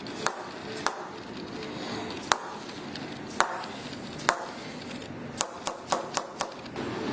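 A series of sharp clicks, irregularly spaced at first, then five in quick succession about five seconds in.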